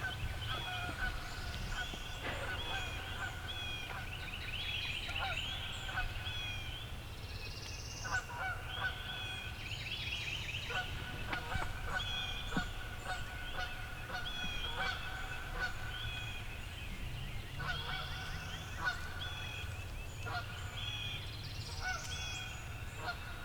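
Birds calling: repeated short notes from several birds, songbirds among them, over a steady low rumble.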